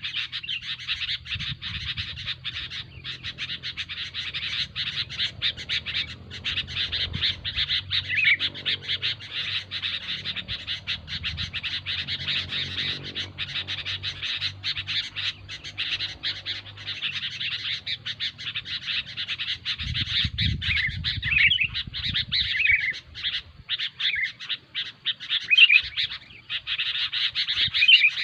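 Sooty-headed bulbuls (kutilang) calling noisily: a dense, rapid chatter with occasional sweeping whistled notes.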